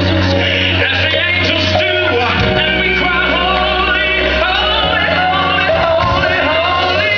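Gospel song performed by several singers with a band, voices gliding over held bass notes.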